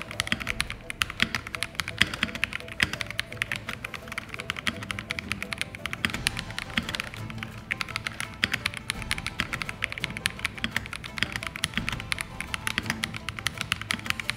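Fast typing on an Akko PC75B Plus mechanical keyboard, with a PC plate and Poron and thick silicone foam inside: a dense, continuous run of keystroke clacks. Background music plays underneath.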